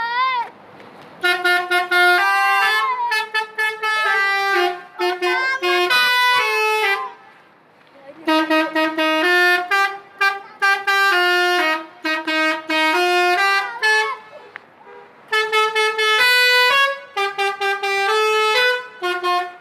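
Telolet horn, the multi-tone musical bus horn, playing a melody of stepped, held notes in three phrases with short breaks between them.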